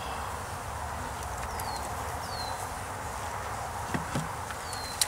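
Steady buzzing of loose honeybees around an open top bar hive during a package install. A few short, falling high chirps, two light wooden knocks about four seconds in, and a sharp click just before the end.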